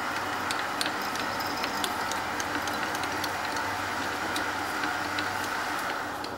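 Small 10x22 metal lathe running, its 4-jaw chuck spinning while a tap drill for an 8-32 thread, fed from the tailstock drill chuck, bores into the end of the workpiece, with many small scattered ticks. The sound drops away near the end.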